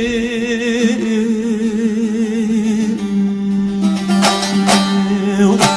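Folk song with a plucked string instrument. A voice holds a long wavering note for about three seconds, then a lower note is held steady while the strings are plucked a few times near the end.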